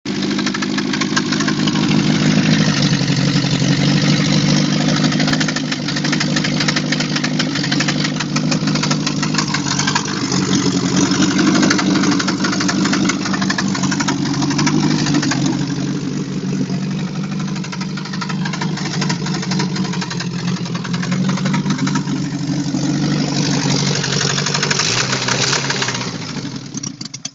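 A 2.0-litre car engine running steadily at idle with a rapid, regular knock riding on its drone, the knock the engine is being recorded to show. It fades out near the end.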